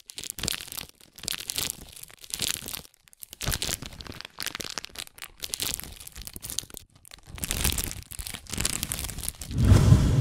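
Plastic shopping bags crinkling and rustling in irregular bursts, with a louder, deeper thump near the end.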